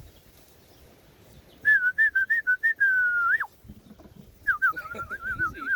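A person whistling a warbling tune in two phrases. The first is short wavering notes and a held note that ends in a quick downward slide; the second, about a second later, trills up and down.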